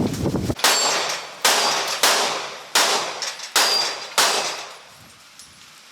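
Six gunshots in a steady string, about two-thirds of a second apart, each followed by a ringing clang of steel targets being hit.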